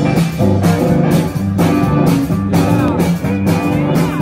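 Live band playing an instrumental passage through a PA: electric guitars, bass guitar and drum kit over a steady bass line, with a lead guitar sliding and bending notes.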